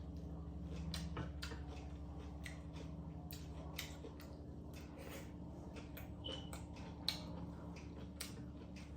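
Light, irregular clicks and taps of utensils handling food, over a steady low hum.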